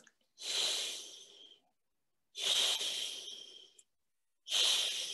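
A man producing the German 'ich' sound, a voiceless palatal fricative: a breathy hiss made with the sides of the tongue held against the teeth and the tongue tip down. He makes it three times, each hiss about a second long, starting strong and fading. The third begins near the end.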